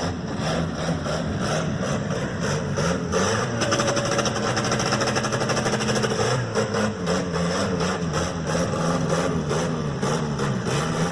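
Car engines with loud exhausts running and revving as the cars pull away, the engine note rising and falling.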